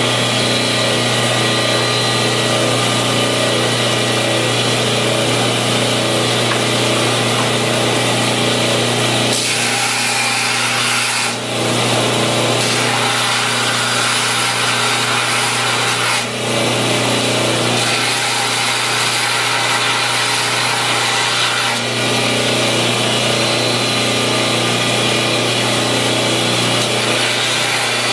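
Homemade 2x72 belt grinder running steadily with its low motor hum, while a steel knife blade is held against the water-wetted belt, grinding a new point onto a broken tip. The grinding hiss drops out briefly three times, as the blade comes off the belt.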